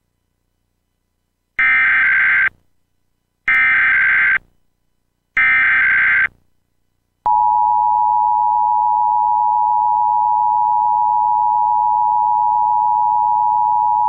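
Emergency Alert System signal for a Required Monthly Test on cable TV: three short bursts of SAME header data, a harsh warbling screech, about two seconds apart, then the steady two-tone EAS attention signal starts about seven seconds in and holds.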